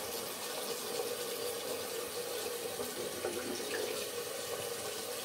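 Bathroom tap running steadily into a sink.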